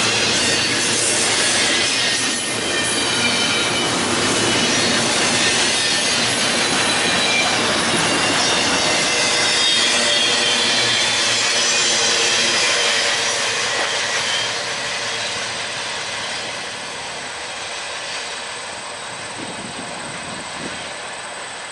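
Long intermodal train of double-stack container cars rolling past, steel wheels on rail, with short high-pitched wheel squeals. The noise fades gradually after about fourteen seconds.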